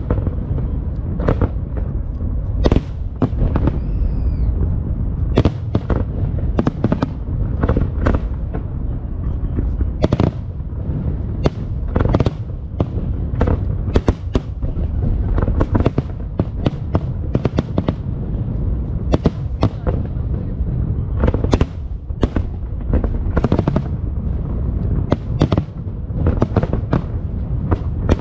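Fireworks display going off continuously: many sharp cracks and booms in quick, irregular succession over a steady low rumble of bursting shells. A faint rising whistle comes about four seconds in.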